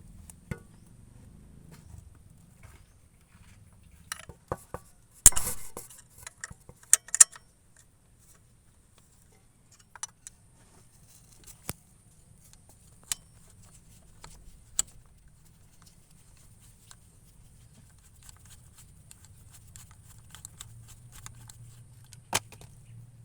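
Scattered metallic clinks and knocks, like hand tools and small metal parts being handled, with the loudest cluster about five to seven seconds in, over a faint steady hum.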